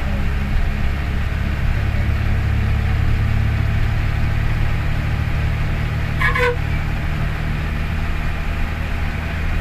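Diesel engine of a state transport bus running steadily under way, with a strong low hum and road noise heard from the driver's cabin. A brief higher tone sounds about six seconds in.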